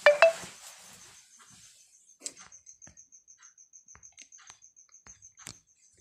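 Close handling knocks and rattle at the start as a hand grabs the recording device, followed by scattered light clicks. Underneath, a cricket chirps in a fast, even, high-pitched pulse.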